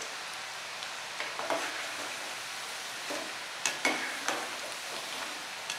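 Batter-coated cassava chips (cassava bhajia) deep-frying in hot oil in a wok: a steady sizzle of bubbling oil, with a few brief clicks over it.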